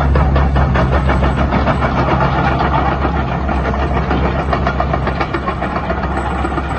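Hitachi EX120-3 excavator's diesel engine running steadily, with a dense, fast mechanical clatter over the hum.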